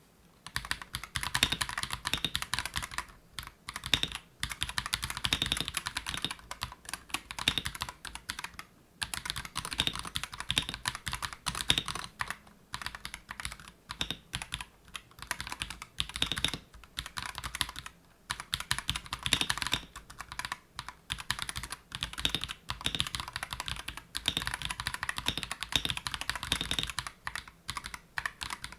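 Akko 5075B Plus V2 mechanical keyboard being typed on steadily, a fast run of key clacks broken by several short pauses.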